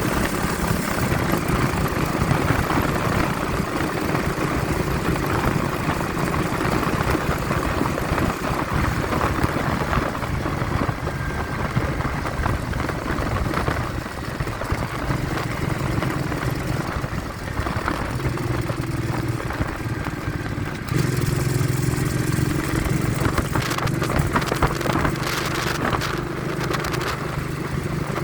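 Vehicle engine running steadily on the road, with wind buffeting the phone's microphone. The engine note gets louder about two-thirds of the way through.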